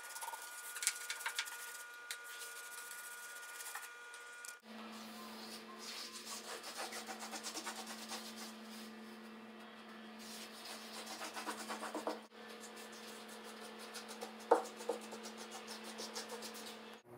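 Paintbrush bristles brushing a white coating onto plywood in quick, repeated scratchy strokes, with a sharp tap near the end.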